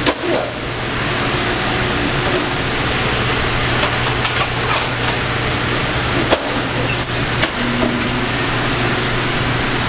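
Steady roar of commercial kitchen fans (exhaust hood and convection oven) with a low hum underneath, broken by a few sharp metal clanks as sheet pans are handled at the oven and rack, one right at the start and a cluster about six to seven and a half seconds in.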